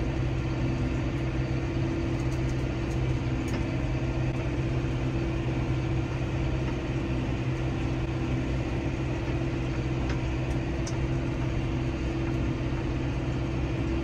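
Massey Ferguson tractor engine running at a steady hum, heard from inside the cab.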